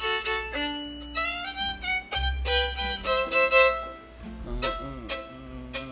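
Old-time string band playing a rag, the fiddle carrying a stepping melody over plucked strings.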